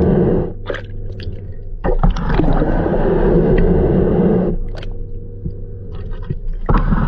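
Pool brush bristles scraping along the pool floor in long strokes, the sound swelling and easing every couple of seconds.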